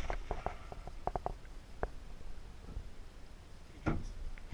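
The echo of a rifle shot dying away, then a run of sharp clicks over about two seconds, typical of the bolt of a Remington 700 being worked to chamber another round, and a dull thump near the end.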